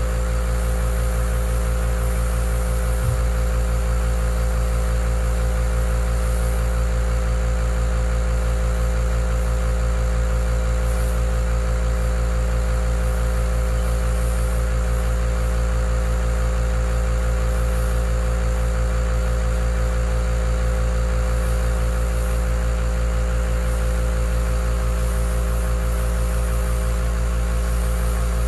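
Skyline single-piston mini airbrush compressor running steadily with a low hum while an airbrush sprays, its hiss coming and going in short bursts.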